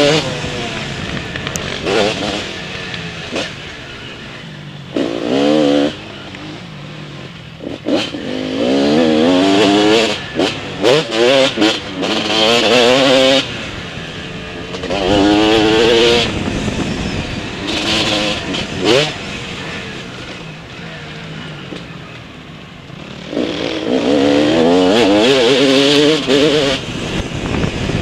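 Motocross bike engine revving up hard and backing off again and again, its pitch climbing with each burst of throttle, with quieter stretches off the throttle between. A few sharp knocks come through around the middle.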